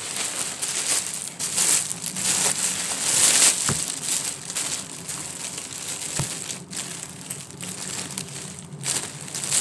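Clear plastic bag crinkling and rustling as it is handled and pulled open close to the microphone, loudest about three seconds in, with two short light knocks in the middle.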